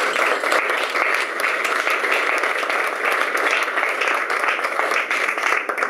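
Audience applauding: many hands clapping together in a dense, steady patter that eases off at the very end.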